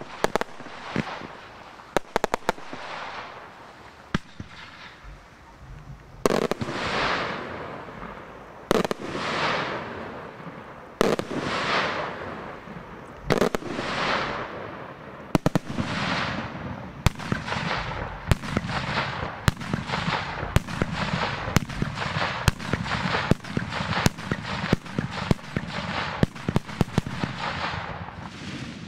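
Daytime fireworks: aerial shells bursting in a string of loud bangs, each trailing off in an echo, with scattered sharp cracks in the first few seconds. The bangs start about two seconds apart and quicken to about one a second.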